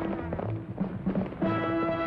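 Dramatic orchestral score with long held notes and a few sharp percussive strokes through the middle.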